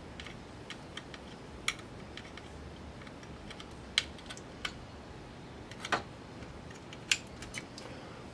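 Scattered light clicks and taps of plastic parts and wire connectors being handled inside a DLP TV as an assembly is worked into place. There are about a dozen irregular clicks, the sharpest about four seconds in and again near seven seconds.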